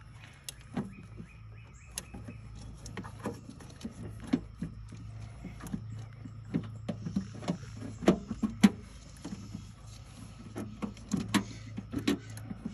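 Irregular small clicks and knocks of ignition wires and push-on connectors being handled at the terminals of a Bosch ignition coil, several sharper clicks coming in quick runs around the middle and near the end, over a steady low hum.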